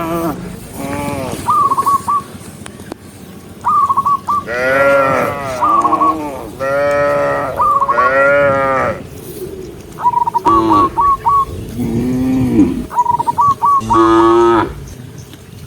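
A herd of cattle mooing, several animals calling one after another and overlapping, each moo rising and falling and lasting under a second. Short, higher calls come in quick runs of three or four between the moos.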